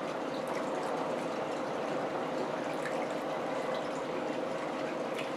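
Steady hiss with a faint hum and a few faint small clicks.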